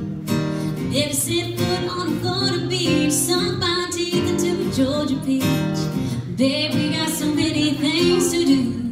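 A woman singing live, accompanied by a strummed acoustic guitar.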